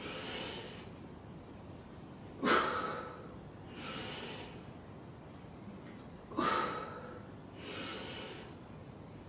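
A woman's slow, deep breathing while she holds a plank, one breath cycle about every four seconds: a sharp, loud breath, then a softer, longer one about a second and a half later.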